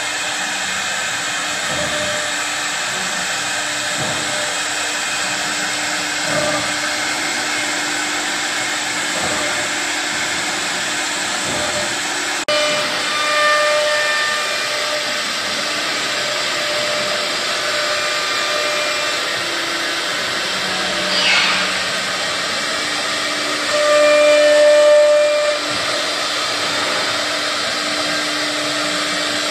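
Three-spindle ATC CNC router cutting MDF panel: a steady spindle whine over hissing cutting noise, swelling louder a few times, longest about two-thirds of the way through.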